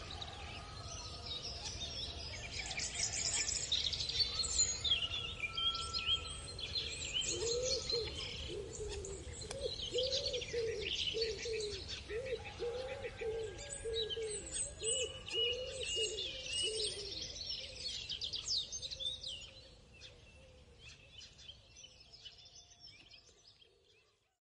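A countryside dawn chorus of many small birds chirping and singing over one another, with a steady low rumble underneath. In the middle, a lower call repeats about once or twice a second for roughly ten seconds. Near the end everything drops away and fades out.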